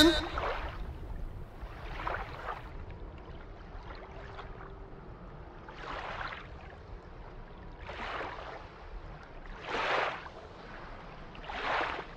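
Small waves on an alpine lake lapping against the rocky shore, in soft swells every two to four seconds, the strongest near the end.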